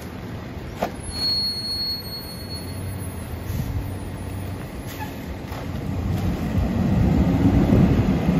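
Freightliner garbage truck with a Heil PT1000 rear-loader body, its diesel engine running steadily behind the open hopper, with a sharp knock about a second in. From about six seconds in the engine and hydraulics grow steadily louder as the packer cycle starts.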